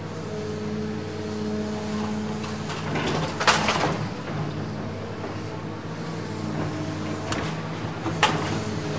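Dubbed engine sound effect of a heavy vehicle running steadily, with two short hissing bursts, one about three and a half seconds in and a shorter one near the end.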